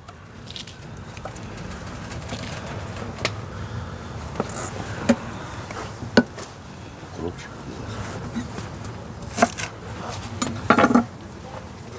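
A handful of sharp, scattered taps and clicks of a knife and fingers on a wooden cutting board as sliced onion is gathered into a steel bowl, over a steady low background hum.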